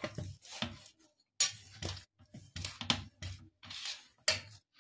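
Stainless steel plate knocking and clinking, with some scraping, as hands press and knead mashed potato dough on it: a series of irregular knocks about two a second.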